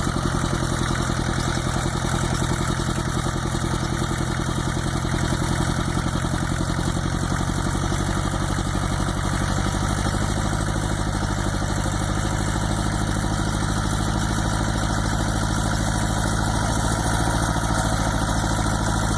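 Farm tractor engine running steadily while pulling a plow through the soil.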